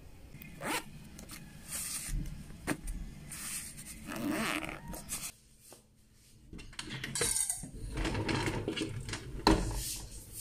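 Bedding rustling as someone stirs under a blanket, then a sliding window and its insect screen being pushed open, the frame scraping in its track, with a sharp knock near the end as it stops.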